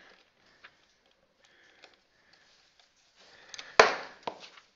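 Faint clicks and scrapes of a small screwdriver and hands on a plastic toy robot as a screw is worked, with one short, loud burst of noise near the end.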